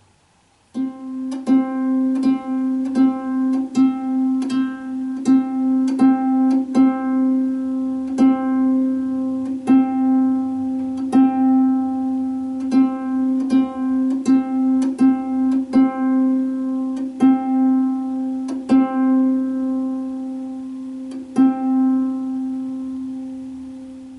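Lever harp's middle C string plucked over and over in an uneven, rhythmic pattern, each pluck ringing into the next. The notes start a little under a second in.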